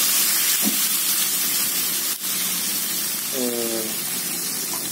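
A stream of water poured into a hot wok of frying chicken, hissing and sizzling as it hits the hot oil. The hiss eases gradually as the liquid fills the pan.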